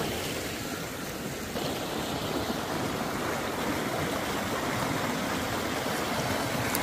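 Fast mountain river flowing: a steady, even rush of water.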